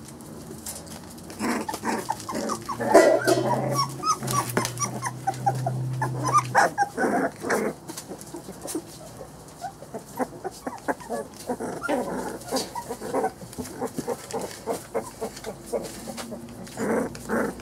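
Three-week-old Brittany puppies whimpering and squeaking in short, high cries as they tussle, busiest in the first half. About three seconds in, a low steady drone lasts for a few seconds.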